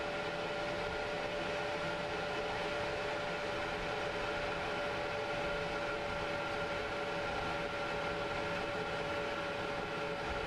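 A 1978 Chevrolet Stepside pickup cruising at steady speed, heard from inside the cab: an even rush of road and wind noise with a steady whine held at one pitch.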